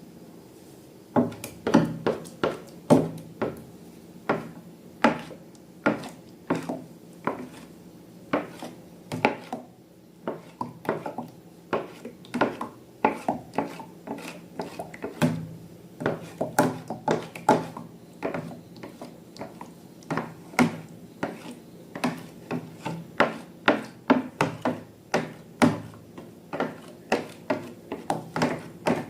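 Slime being worked by hand, giving a steady run of sharp clicks and squelches, about two a second, with a short lull around ten seconds in.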